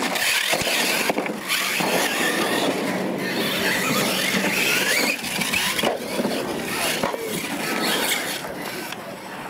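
Losi LMT radio-controlled monster trucks racing, their electric motors whining up and down in pitch as they accelerate and slow, over a steady hiss of tyres on gravel.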